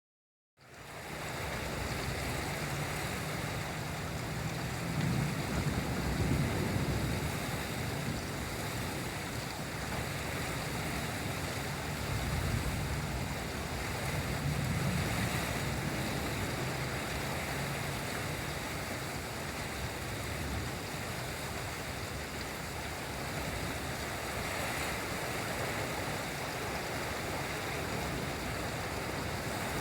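Steady heavy rain hiss with low, rolling thunder rumbles that swell a few seconds in and again about halfway through. The storm fades in over the first second.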